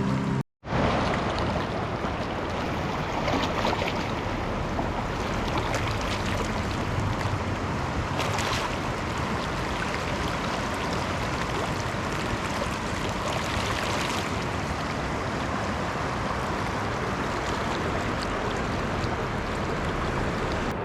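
Steady rushing of fast-flowing floodwater in a swollen river. The sound drops out for a moment about half a second in.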